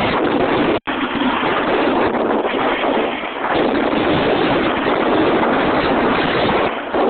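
Wind rushing over the microphone of a snowboarder's camera during a run: a steady, loud noise that cuts out for an instant about a second in.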